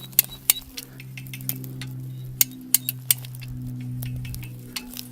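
Hand-cranked ratchet tool being worked in irregular strokes: sharp metallic clicks and clinks, a dozen or so, unevenly spaced, over a steady low hum.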